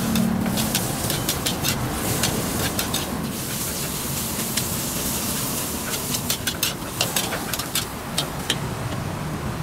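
Stir-frying in a wok: a metal spatula clacks against the wok in irregular runs of sharp knocks over a steady hiss, with the knocks thickest near the start and again in the second half.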